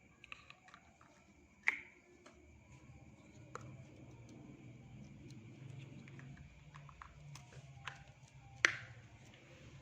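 Handling noise: a few sharp clicks or taps over a faint low hum, the two loudest about 2 seconds and 9 seconds in.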